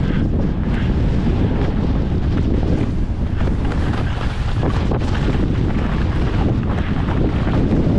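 Wind buffeting the microphone of a skier's camera while skiing downhill. It makes a loud, steady rushing, with the hiss of skis running over snow beneath it.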